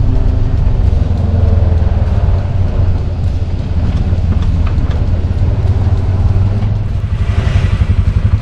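Motor vehicle engine running loudly and steadily, then settling about seven seconds in into a rapid, even pulsing beat.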